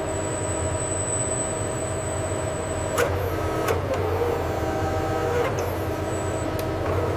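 A steady machine hum with several held tones and a faint high whine, broken by sharp clicks about three seconds in, again shortly after, and once more near the end.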